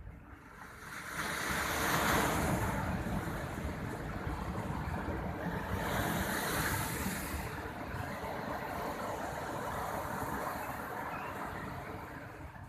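Ocean surf breaking on a beach: the wash builds about a second in and surges twice, then subsides near the end.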